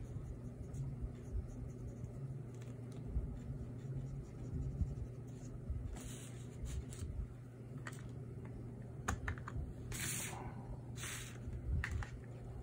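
Pen scratching and tapping on drawing paper while inking, in many short strokes with a few longer scratchy strokes about six, ten and eleven seconds in. A low steady hum runs underneath.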